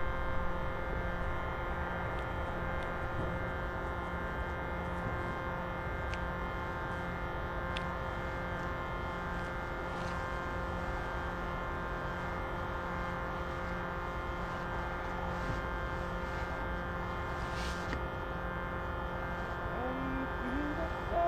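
A bellows-driven reed instrument holding a steady drone chord of several tones, unchanging throughout. Near the end a voice begins to sing over it.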